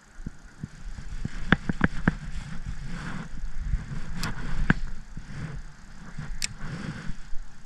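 Sharp clicks and light knocks of gear being handled on an aluminium jon boat, over a low rumble: a quick run of about four clicks a second and a half in, two more around the middle and one near the end.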